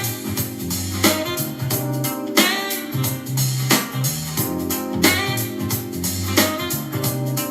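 Instrumental music with a steady beat, played through a small JBL Go-series Bluetooth speaker.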